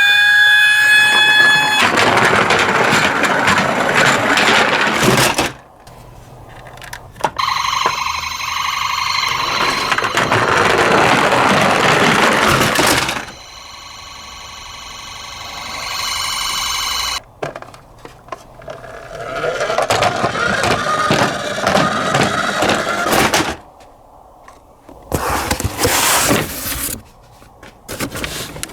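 Electronic ambulance siren sound, in steady tones that break off and come back several times, alternating with stretches of noisy rattling.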